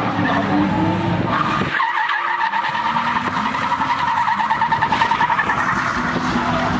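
Car drifting: engine revving and tyres squealing. About two seconds in, the low engine note drops back while the tyres keep up a wavering squeal.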